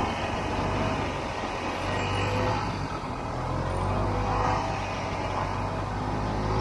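Snowmobile engine running steadily under way. It eases off slightly about halfway through and picks up again.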